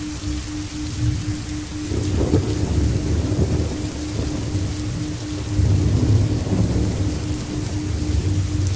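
Recorded rain falling steadily, with thunder rumbling that swells about two seconds in and again over the second half. Under it runs a low steady tone that pulses several times a second.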